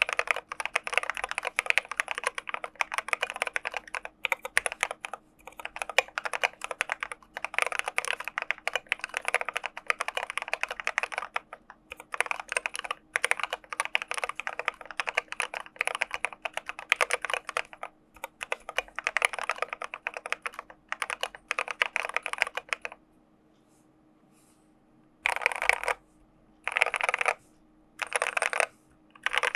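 Typing on an IDOBAO ID80 mechanical keyboard with Gateron Black Ink v2 linear switches and SA-profile PBT keycaps: a steady run of keystrokes with brief pauses. About two-thirds of the way through it stops for a couple of seconds, then comes back as four short, quick flurries of keystrokes.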